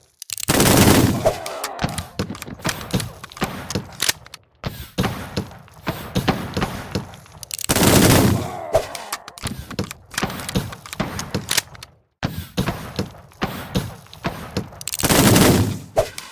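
Gunfight: a rapid, irregular series of gunshots, with three louder, longer blasts about a second in, about eight seconds in, and near the end.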